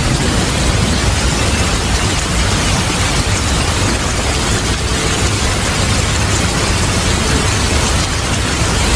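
Steady heavy rain with a low, continuous rumble of thunder underneath, the sound holding even throughout without separate cracks or claps.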